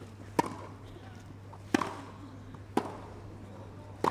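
Tennis rally: racket strikes on the ball, four sharp hits about a second apart.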